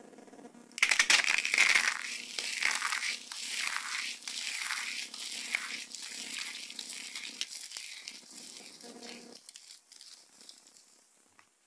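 Dry soap crumbled and crushed between the fingers: a dense crackle that starts suddenly about a second in, is loudest at first, and gradually thins out and fades.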